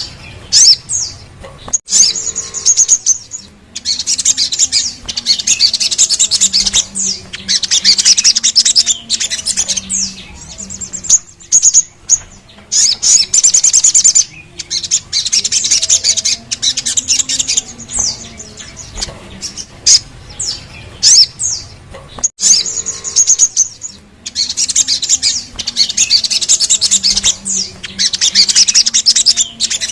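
Sogon, a sunbird, singing: long bursts of rapid, high trilling and chirping broken by short pauses, with the same run of phrases repeating about every twenty seconds.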